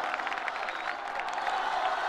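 A crowd clapping and cheering, with soundtrack music faintly underneath.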